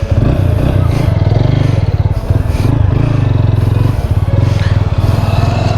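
KTM Duke 200's single-cylinder engine running loud and close, a fast steady pulse of firing strokes that comes in suddenly at the start.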